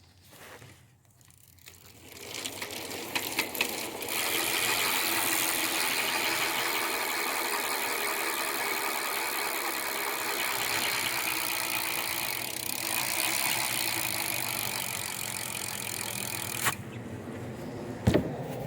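Rear cassette hub of a DK BMX bike spinning freely during a hub check, its pawls clicking so fast they blend into a steady buzz that starts about two seconds in and cuts off suddenly near the end; a couple of sharp knocks follow. The hub sounds pretty quiet, with a low tone.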